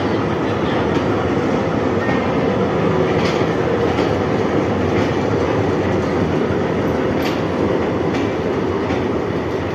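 Old diesel locomotive running steadily as it rolls slowly past, its engine making a continuous loud rumble. A few sharp clicks stand out over it.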